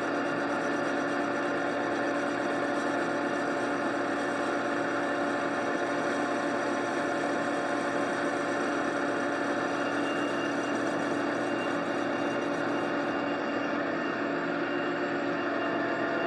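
Boye & Emmes 16-inch engine lathe running steadily under power with a gear-train whine, taking a cut to thin a steel wheel spacer. The high hiss drops away about three seconds before the end.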